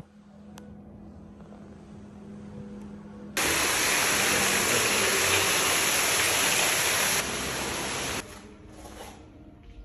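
Steady rush of water into a spa grotto pool, starting abruptly about a third of the way in, loud and even for about four seconds, then cutting down sharply. Before it, only a faint steady hum.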